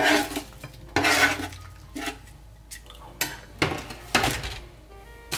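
Metal tongs scraping and clattering against a metal sheet pan and a ceramic plate while roasted potatoes and onions are scooped and dropped onto the plate. There are about seven separate clacks and scrapes, the longest two in the first second and a half.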